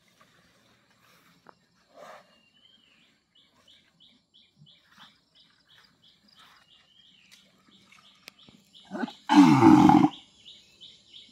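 A fighting bull gives one short, loud, low bellow falling in pitch about nine seconds in, with a brief grunt just before it. Before that come faint scrapes and thuds as it digs its horns into loose earth, over a high chirp repeating about three times a second.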